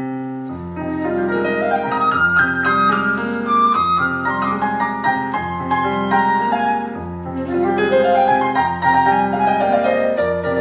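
Flute and piano duo playing an instrumental piece live, the piano carrying quick rising runs of notes over a changing bass line.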